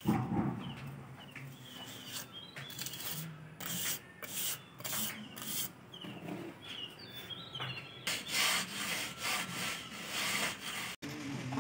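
A mason's hand float rubbing over fresh cement plaster on a pillar in repeated scraping strokes that come thicker and faster near the end, with birds chirping.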